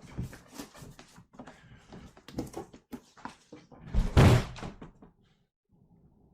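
A mailed package being ripped open by hand, with scattered tearing and rustling of the packaging. About four seconds in comes a loud, heavy thump.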